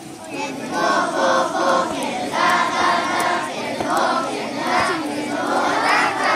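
A large group of young children singing together in unison.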